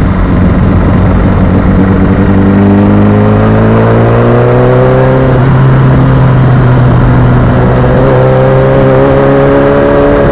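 Sport motorcycle engine pulling through the gears: its pitch climbs for a few seconds, drops at a shift about halfway, then climbs again. Heavy wind rush over the microphone.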